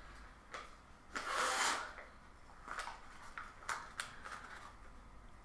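A single puff of breath blown into a folded paper origami balloon to inflate it, about a second in and lasting under a second. A few light clicks and crinkles of the paper are heard around it.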